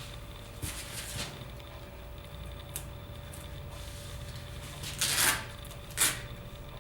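Double-sided tape and a cork panel being handled: a couple of short soft rustles, then a longer rasp about five seconds in and a short sharp one about a second later, over a faint steady hum.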